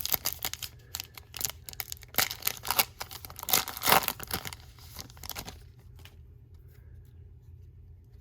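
A plastic trading-card pack wrapper being torn open and crinkled: a run of irregular rips and crinkles that stops about five and a half seconds in.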